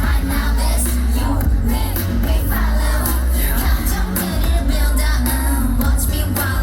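A K-pop dance track played loudly over a concert sound system, with female vocals over a heavy bass beat.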